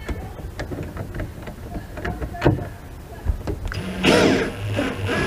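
Cordless drill driving a screw into plywood: a few light clicks and taps first, then about four seconds in the drill motor spins up with a rising whine and runs on steadily.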